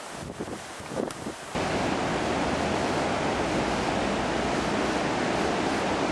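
Steady, loud rush of the Río Saja in flood, a fast, high river pouring past. It comes in suddenly about a second and a half in, after a quieter stretch of hiss.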